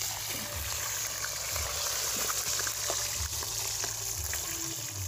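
Fish frying in hot oil: a steady sizzling hiss with small crackles and pops.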